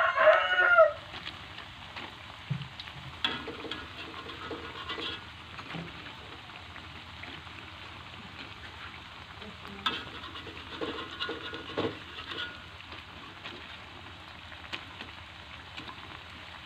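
Grasshopper rempeyek batter frying in a little oil in a wok, a steady sizzle, with a metal spatula scraping and working in the pan in two bouts, a few seconds in and again about ten seconds in. A rooster's crow carries into the first second.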